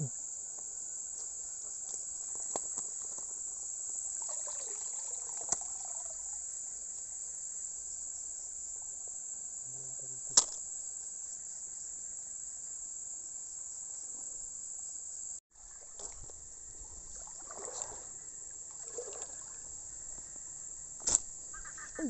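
Steady high-pitched chirring of night insects, crickets, with two sharp clicks, one about ten seconds in and one near the end.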